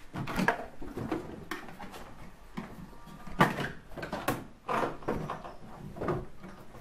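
Plastic windscreen cowl grille of a Renault Mégane being pried up and lifted off: a series of sharp clicks and knocks as its clips pop free and the panel knocks and rattles. The loudest knocks come about three and a half and four seconds in.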